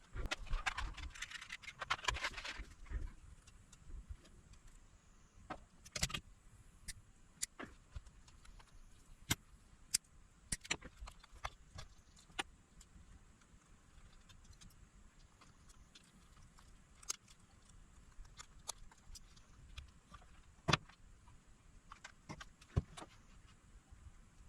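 Small hard clicks and clinks of tools and small metal parts being handled on a workbench, scattered and irregular, with a rustling scrape in the first couple of seconds.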